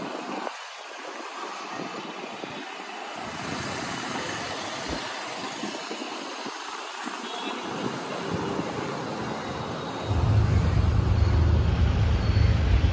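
Traffic and road noise of a car driving slowly through a busy market street, heard from inside the car. About ten seconds in a loud low rumble comes in suddenly and stays.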